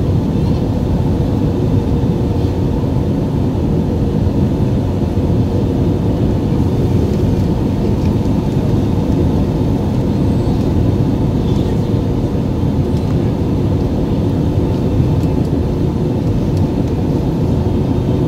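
Steady jet-engine and airflow noise inside an airliner cabin on approach to landing, a constant low rumble.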